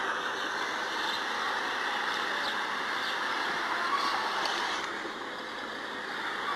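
A steady, noisy drone with no clear pitch, the kind of sound passed off as mysterious 'strange sounds in the sky'.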